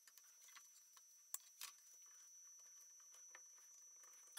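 Faint handling noise: soft rustles and small clicks of gloved hands pushing a clear PVC hose onto the scroll saw's blower tube, with a couple of sharper clicks about a second and a half in.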